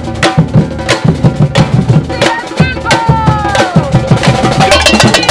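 Percussion-led music: a fast, steady rhythm of drum strikes, with snare and bass drums, and a few sliding higher notes over it near the middle.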